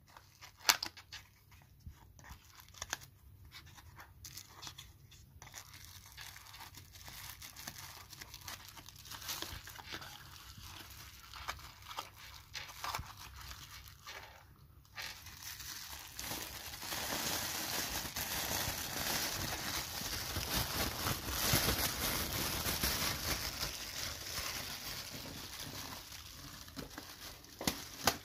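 A small cardboard box being handled and opened, with scattered light clicks and taps, then a long stretch of dense plastic crinkling and rustling as a film-wrapped disposable shower cap is unwrapped and its thin plastic is stretched and handled. The crinkling starts a little past halfway and is the loudest part.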